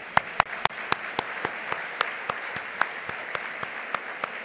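Audience applauding. One person's claps stand out louder and sharper, about four a second, over the crowd's steady clapping.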